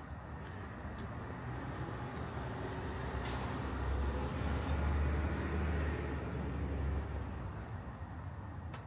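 A vehicle passes, its low rumble and noise swelling to a peak about five seconds in and then fading.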